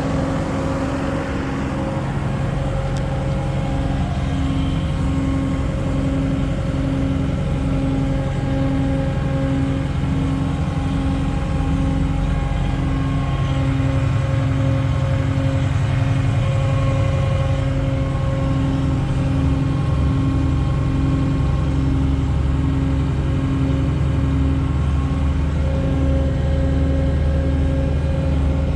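Kubota SSV75 skid steer's diesel engine running steadily. From about four seconds in, a low tone pulses on and off about one and a half times a second.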